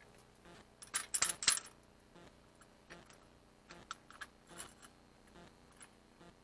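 Seatbelt retractor shaken by hand, rattling and clicking as its stuck inertia-locking ball bearing is worked loose so the belt will pay out: a quick burst of rattling clicks about a second in, then scattered single clicks.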